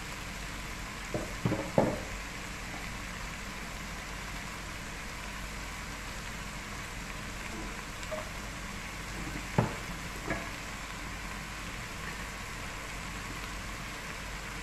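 Chicken, mushrooms and mixed vegetables sizzling steadily in a coated pot, with a few sharp knocks of a wooden spatula against the pot: three in quick succession about a second in, and two more near ten seconds.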